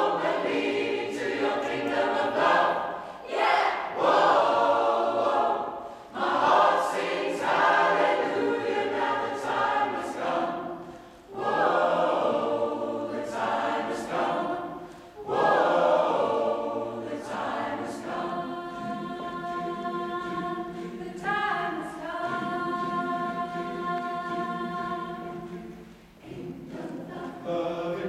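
Mixed choir of men and women singing a cappella: short phrases that break off and restart, then, past the middle, long held chords that shift once to a new chord.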